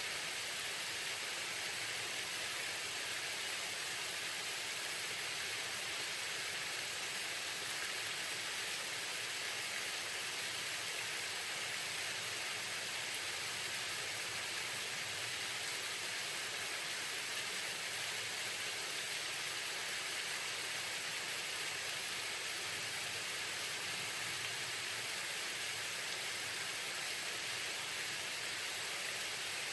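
Waterfall: a steady, unbroken rush of falling water, with no other sound standing out.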